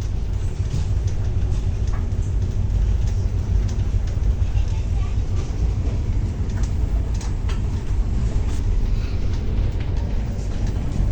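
Moving passenger train heard from inside the carriage: a steady low rumble of the running gear on the track, with scattered light clicks and rattles.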